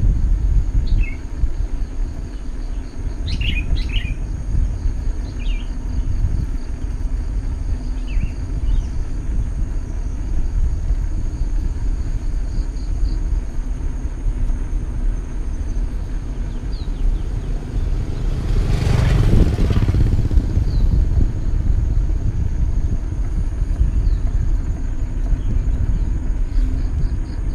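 Outdoor ambience: small birds chirping over a steady low rumble, with a vehicle passing by about two-thirds of the way through.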